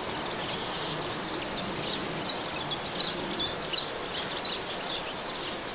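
A songbird singing a run of about a dozen short, high notes, each sliding down in pitch, about three a second. It starts about a second in and stops near the end, over a steady outdoor background hiss.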